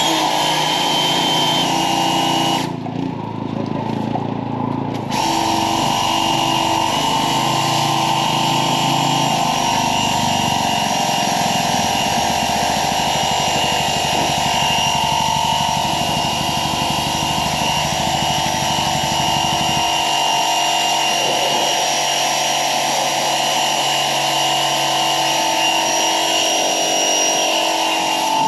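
Small pressure washer running with a steady whine, its spray hissing against a mower deck; the spray stops briefly a few seconds in and then resumes. Under it a side-by-side's engine runs and cuts off about two-thirds of the way through.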